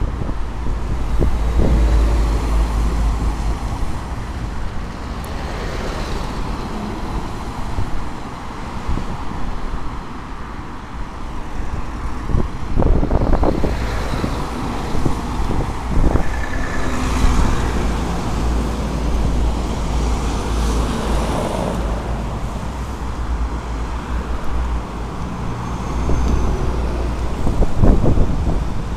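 Cars driving past on an expressway. The tyre and engine noise swells and fades as each one goes by, over a steady low rumble, and is loudest near the end as headlights come close.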